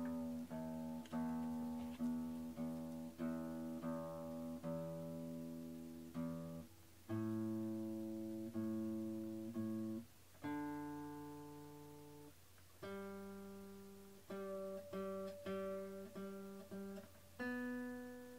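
Background music on acoustic guitar: a slow piece of plucked notes and chords, each ringing out and fading before the next.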